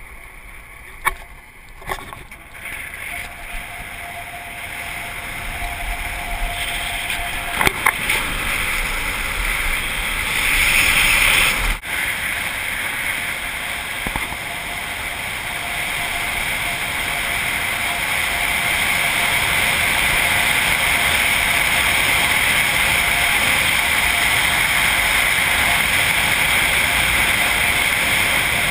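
Subaru car driving on a dirt road, heard from a camera mounted outside the car: a steady rush of wind and tyre noise on the gravel that grows louder over the first twenty seconds as the car picks up speed, then holds. A few sharp knocks come in the first twelve seconds.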